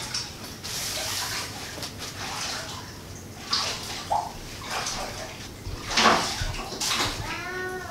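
Cloth swishing and rustling in a series of quick bursts as a garment is shaken out and handled, with a louder bump and rustle about six seconds in. A short hummed voice sounds near the end.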